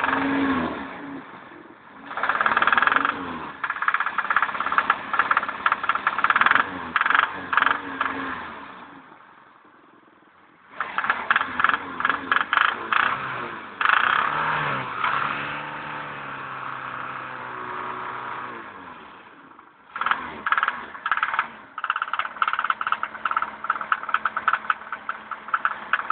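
BMW M10B18 1.8-litre inline-four engine run in three bursts, each starting abruptly, with a dense rapid metallic knocking through the running. In the middle burst the engine note falls away before it stops. The knock is the unexplained engine fault the owner is asking about.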